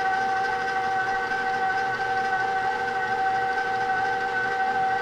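KitchenAid Professional 6 stand mixer (6-quart, 575 W) running with a steady whine, its dough hook turning flour and water into bread dough.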